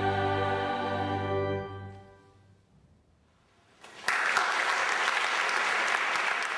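Chamber choir and strings holding a final chord that cuts off and rings away in the chapel's reverberation, followed by about two seconds of near silence. Then audience applause breaks out abruptly about four seconds in and carries on steadily.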